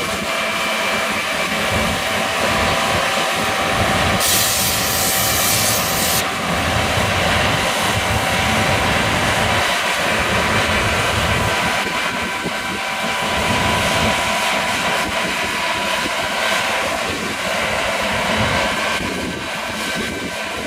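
John Deere combine harvester running as it harvests barley: a steady mechanical drone with a constant whine. About four seconds in there is a hissing rush lasting roughly two seconds.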